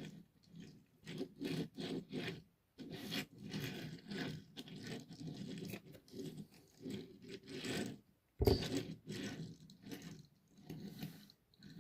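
Hands handling a diecast model car and its packaging: irregular scraping and crunching, with one sharp knock about eight and a half seconds in.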